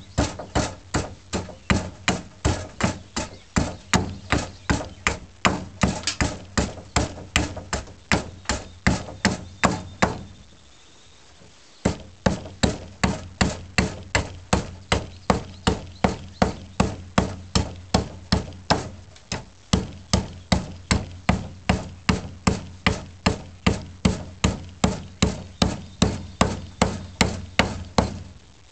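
Side/hewing axe chopping into a wooden snath grip with fast, even strokes, about three a second, with a short pause around the middle.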